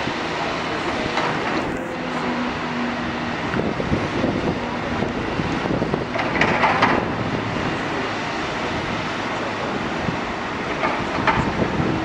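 Caterpillar 325D tracked excavator's diesel engine running under load with hydraulic work noise, and a clattering scrape of the bucket digging into soil and stones, loudest about six seconds in and again briefly near the end.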